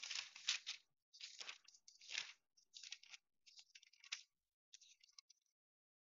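Faint rustling of thin Bible pages being turned, in several short bursts over the first five seconds or so.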